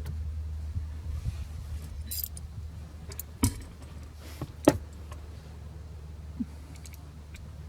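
Small metal parts and hand tools clinking and rattling while a duct is screwed back into place, with several sharp clicks, the loudest near the middle, over a steady low hum.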